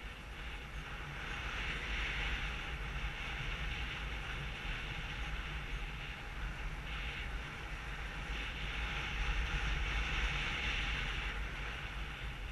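Wind rushing over a GoPro camera's microphone in paraglider flight: a steady rush with a deep rumble, swelling about two seconds in and again near the end.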